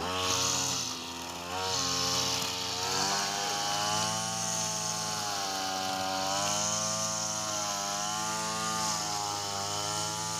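Small engine of a garden power tool running steadily, its pitch wavering slightly up and down, with a hiss on top.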